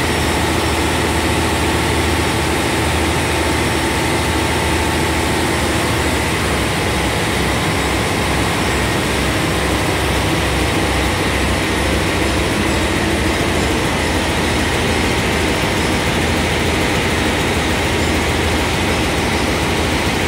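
A Niigata diesel engine running steadily, with a low pulsing beat under its mechanical din.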